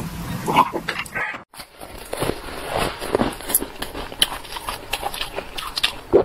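Close-miked mouth sounds of eating: a drink being swallowed, then after a brief break, biting and chewing with many short, crackly crunches.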